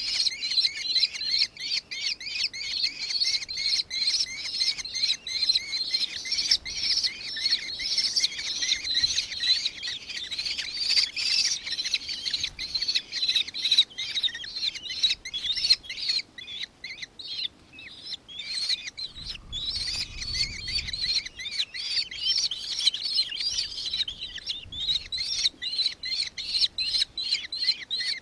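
Nankeen kestrel calling: a long run of rapid, shrill chattering notes, several a second, easing off briefly partway through and then resuming.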